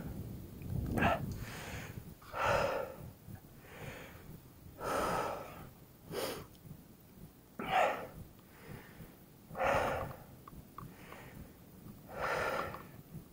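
Mountain biker breathing hard while riding, with about seven loud, rough breaths a second or two apart.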